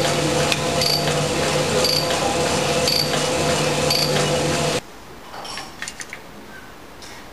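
Cylinder hone running with its finer stones in a bore of a Subaru EJ257 block under a torque plate, taking out the last thousandth: a steady machine sound with a short high squeak about once a second. It cuts off abruptly about two-thirds of the way through, followed by a few light clicks.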